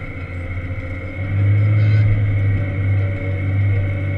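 Diesel engine of a Volvo L70 wheel loader heard from inside the cab, running steadily and then working harder about a second in, louder and deeper, as the loader pushes snow. A steady high whine runs underneath.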